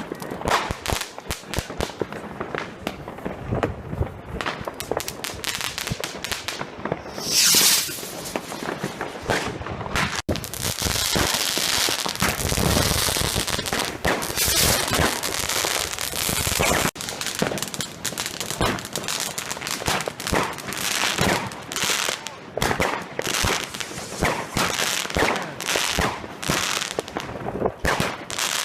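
New Year's Eve consumer fireworks and firecrackers going off in rapid, overlapping bangs. There is a short loud hiss about seven and a half seconds in, and a dense, unbroken hiss from about ten to seventeen seconds.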